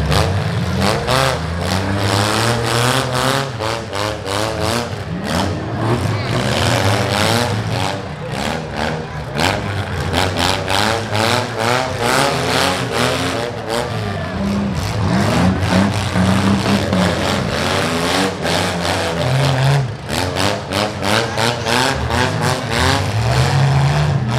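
Six-cylinder demolition derby cars' engines revving up and down hard, with their pitch rising and falling over and over.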